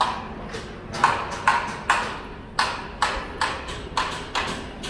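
Footsteps on pavement: shoes strike the ground in an even walking rhythm of about two steps a second.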